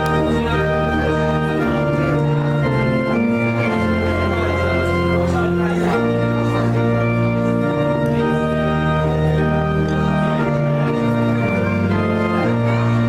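Organ playing slow, sustained chords that change every second or so: a postlude after the closing blessing of a church service.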